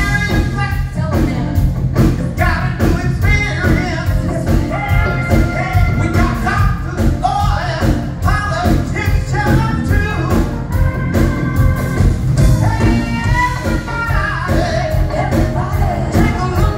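Live band music with a woman singing lead and other women's voices joining in, over drums, electric guitar and keyboards with a steady beat.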